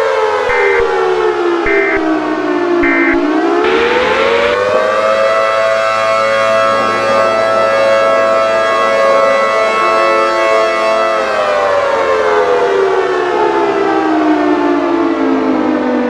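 Civil defense warning siren winding down, then winding up again, holding a steady wail for several seconds and winding slowly down. Three short high beeps sound in the first three seconds, and there is a brief rush of noise as it winds up about four seconds in.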